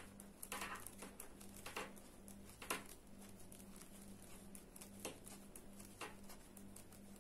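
Knitting needles clicking faintly as rows are knitted, a few sharp clicks at irregular intervals, over a steady low hum.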